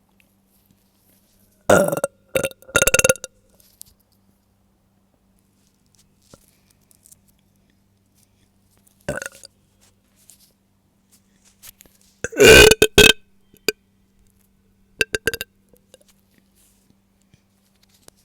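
A woman burping several times while bloated, with pauses between: a couple of burps near the start, a single one in the middle, the longest and loudest a little later, then a quick run of short ones.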